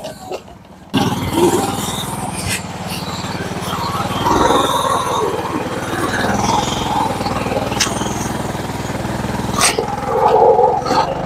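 Lifted Yamaha G16 golf cart's engine running steadily under load as the cart drives through muddy ruts, coming in abruptly about a second in.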